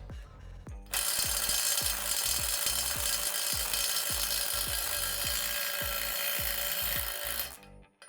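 Kobalt 24-volt impact driver on speed 3 hammering steadily against a nut torqued to 350 foot-pounds, starting about a second in and stopping after about six and a half seconds.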